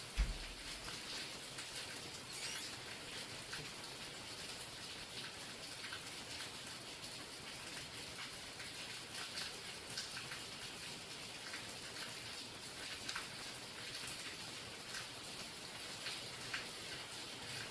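Real rain falling: a steady hiss with many scattered drop taps. There is a brief low thump just after the start.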